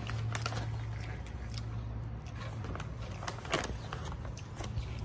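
Scattered clicks and crackles of food and its packaging being handled during a takeout meal, over a steady low hum.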